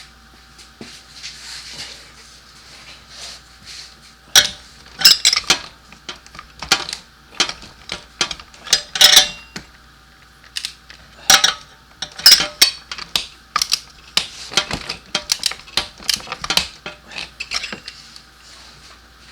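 Metal hand tools clinking and clattering in irregular sharp knocks, starting about four seconds in and going on unevenly.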